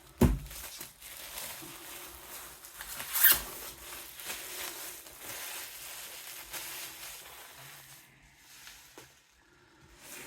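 Cardboard packaging of a vinyl record box set being slid and scraped open by hand, a continuous rustling with a sharp knock right at the start and a louder scrape about three seconds in. It goes quieter for the last two seconds.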